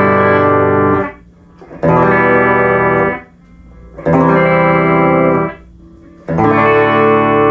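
Epiphone Les Paul electric guitar on its bridge pickup through a clean amp, playing four chords about two seconds apart. Each chord rings for a second or so and then stops short, and the last one is held.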